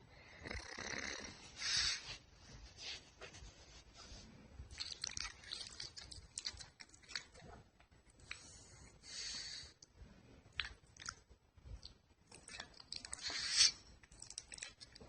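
Pug snoring in its sleep: noisy, snuffly breaths about every three to four seconds, with small clicks between them.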